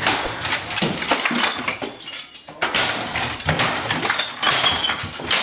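Objects on a cluttered desk being smashed and knocked about: repeated crashes and clattering with glassy clinks of bottles and cups.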